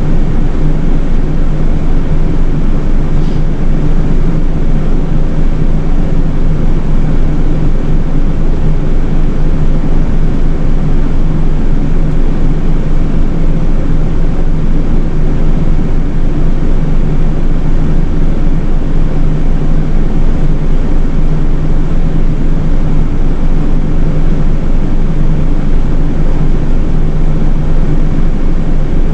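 Nishitetsu city bus's engine running with a steady drone and road noise, heard from inside the bus at the front.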